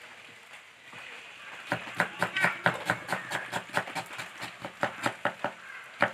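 Kitchen knife dicing an onion on a plastic cutting board: quick, rapid taps of the blade striking the board, about four to five a second, starting a little under two seconds in.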